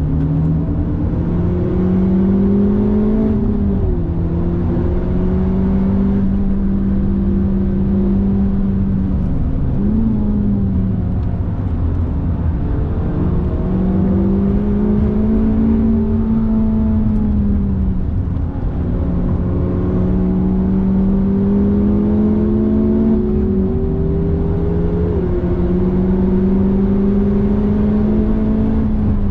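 Honda Civic Type R FK8's turbocharged 2.0-litre four-cylinder engine pulling hard, heard from inside the cabin over heavy road and tyre rumble. Its pitch climbs steadily under load and drops back sharply at gear changes, about four seconds in, about ten seconds in, and again near the middle and toward the end.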